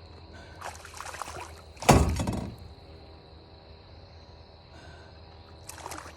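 A hooked bass being landed: water splashing, then a sudden loud thump about two seconds in, and another brief splash near the end.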